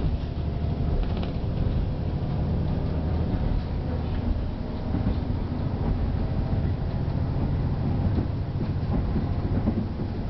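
Diesel railcar running along the line, heard from inside the passenger cabin: a steady low drone with rumbling noise from the wheels on the track.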